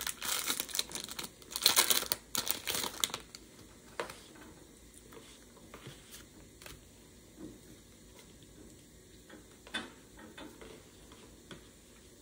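Foil booster-pack wrapper crinkling and tearing as it is opened, loudest for about the first three seconds, then only faint scattered clicks and rustles.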